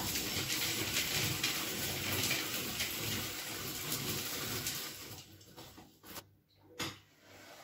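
Hand-cranked rotary drum grater grinding nuts: a dense, steady grating noise that fades out about five seconds in, followed by a few sharp knocks near the end.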